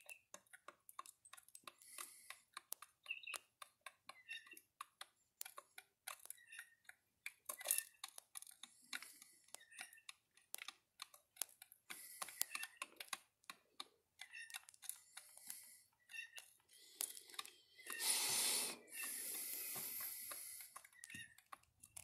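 Rapid, irregular sharp clicks and taps. About three-quarters of the way through, a louder hissing rush lasts about two seconds.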